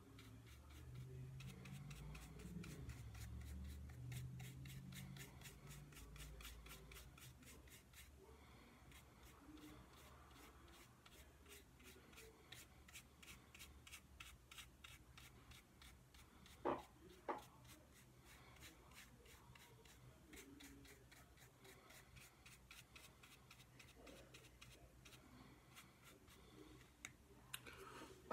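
Faint scratchy strokes of a nearly dry flat paintbrush working paint over a small wooden sign, repeating quickly and evenly. Two sharp knocks come a little past halfway.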